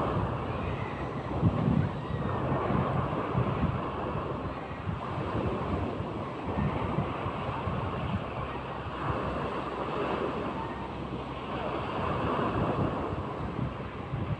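Sea surf, waves breaking and washing in, with wind buffeting the microphone in uneven gusts.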